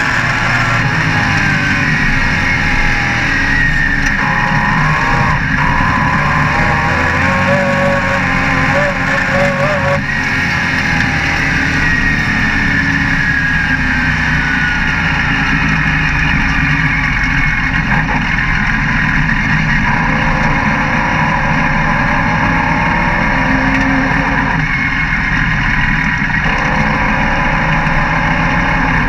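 Dirt-track race car engine at racing speed, heard from inside the cockpit: loud and continuous, its pitch rising and falling as the driver gets on and off the throttle through the turns, with wind and chassis rattle underneath.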